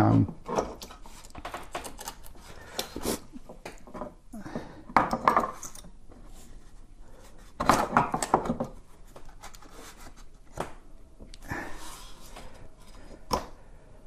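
Clicks, knocks and rubbing as an extra-large pedal is handled and pushed onto the pedal mount of a KingSong KS18XL electric unicycle, with a few longer scraping stretches between the sharp clicks.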